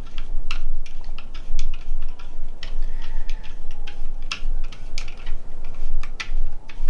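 Irregular clicks and small knocks of hard plastic and metal parts being handled while a screw is driven by hand into a Traxxas Revo 3.3 RC truck's chassis.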